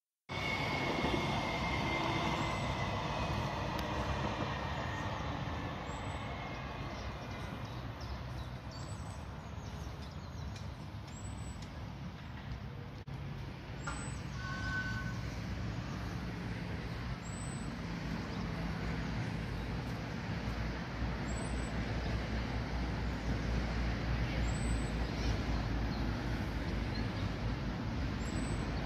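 Steady low rumble of vehicles, growing somewhat stronger in the second half, with faint short high chirps every few seconds.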